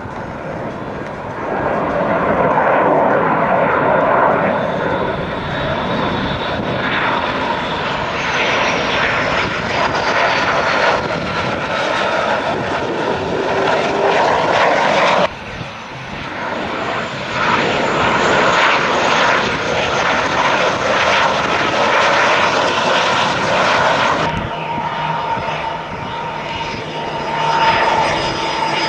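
Jet engines of aircraft on approach to land. First an F/A-18 Hornet fighter's twin jet engines run loud, with a high whine that falls in pitch as it passes. The sound cuts abruptly about fifteen seconds in to more jet noise, and near the end a small business jet's engines give a steadier, quieter whine.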